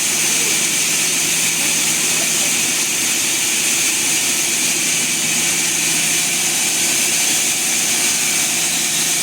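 Sawmill machinery running steadily: an even mechanical hum with hiss. No cutting strikes or changes in load are heard.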